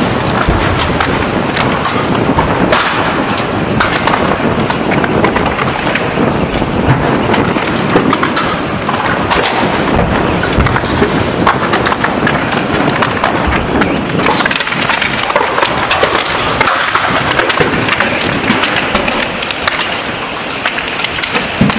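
A multi-storey car park fire burning: dense crackling with many sharp pops over a steady rushing noise.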